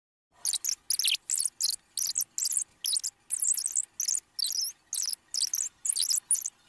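A Minnie Mouse voice played back at double speed, heard as rapid, very high-pitched syllables in short bursts several times a second, too fast to make out as words. It starts about half a second in.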